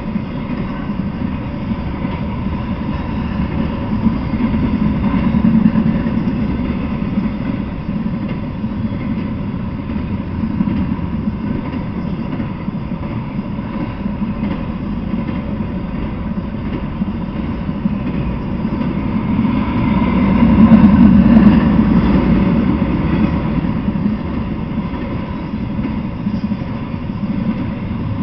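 Intermodal freight train rolling past: a steady rumble of wheels on rails that swells louder about five seconds in and again, most strongly, about twenty-one seconds in.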